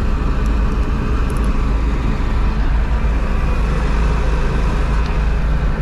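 Massey Ferguson 850 combine's Perkins diesel engine running steadily, a loud, even drone without a break.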